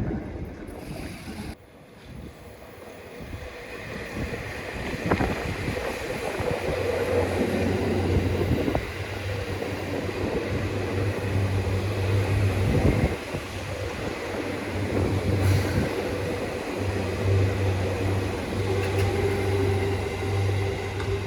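Seibu Shinjuku Line electric commuter train running past a level crossing: steady running noise of wheels on rail with a low motor hum, building over the first few seconds and then holding before it cuts off suddenly near the end.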